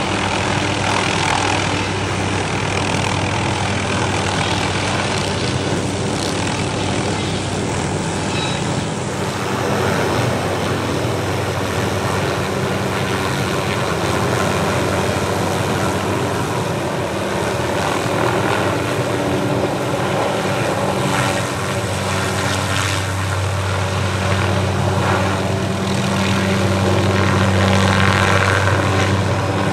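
Helicopter running overhead with a suspended aerial saw: a steady rotor-and-engine drone with a low hum, growing a little louder near the end.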